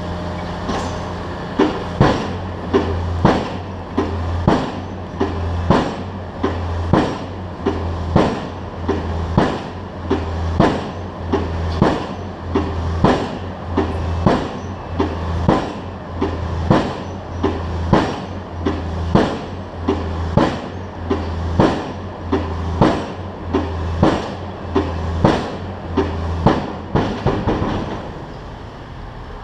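Pile driver hammer striking a pile in a steady rhythm, about one and a half blows a second, each a sharp ringing bang. A steady low engine hum runs underneath. The blows start about two seconds in and stop shortly before the end.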